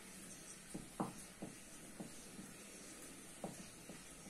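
Marker pen writing on a whiteboard: a few short, faint scratching strokes over a low room hiss, clustered about a second in and again shortly before the end.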